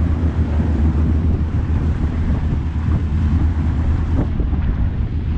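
Boat motor running steadily with a low rumble, with wind buffeting the microphone.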